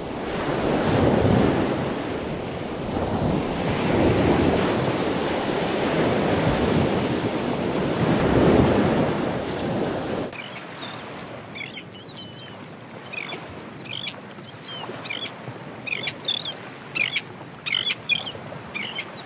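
Ocean surf: waves rushing in and ebbing in slow swells every few seconds. About halfway through it cuts off sharply, giving way to birds chirping in many short, quick high chirps.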